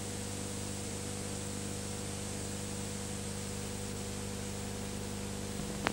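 Steady hiss with a low electrical hum from an old videotape transfer, with no programme sound yet. A single sharp click comes just before the end.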